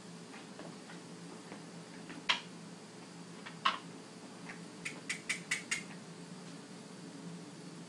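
A few sharp clicks and taps from equipment being handled: one about two seconds in, another a little later, then a quick run of five about five seconds in, over a steady low electrical hum.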